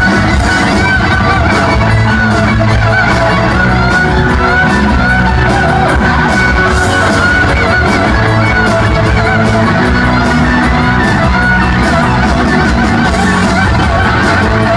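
A rock band playing loud and live through a hall PA: electric guitar lines over bass and drums, with shouts from the crowd.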